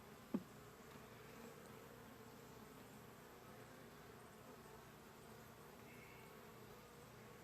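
Honey bees buzzing faintly and steadily around an open hive, with one brief thump about half a second in.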